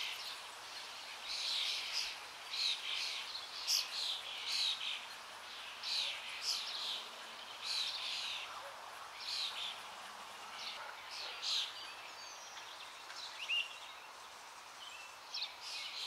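Birds calling outdoors: short, high chirps repeating irregularly, one or two a second, thinning out near the end, over a steady faint background hiss.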